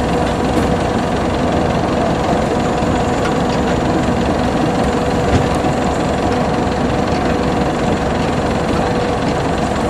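Homemade Vietnamese rice combine harvester's engine and threshing drum running steadily as it harvests, a continuous machine drone with one held tone.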